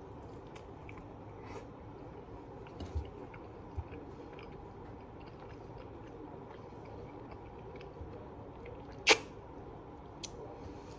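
Close-up chewing of pizza, with small wet mouth clicks and smacks scattered throughout. A sharp, loud click about nine seconds in stands out above the rest.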